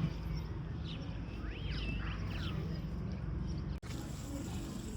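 A few short rising-and-falling bird chirps about a second and a half in, over a steady low outdoor rumble, with a brief dropout near the end.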